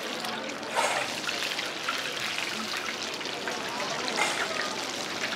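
Hot frying oil sizzling and crackling with a dense spatter of tiny pops, as shrimp deep-fry. It surges louder briefly about a second in and again near four seconds.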